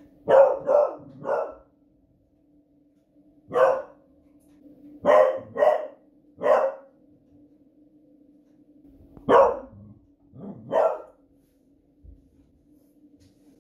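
Beagle barking in irregular bursts: about ten loud, sharp barks, three in quick succession at the start, then singles and pairs with pauses between. She is raising the alarm at the noise of fireworks outside.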